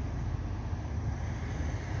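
Wind rumbling on the microphone over the steady sound of an articulated city bus approaching along the road.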